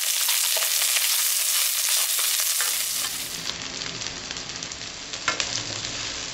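Onion, ginger, garlic and whole spices sizzling in hot oil in a wok as they are stir-fried, with a few sharp clicks from the stirring. The sizzle is loudest for the first three seconds, then softer.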